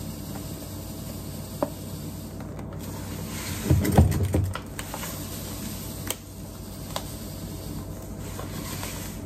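Granulated sugar being poured from its bag into a kitchen container, with a few light clicks and a louder low knock of handling about four seconds in.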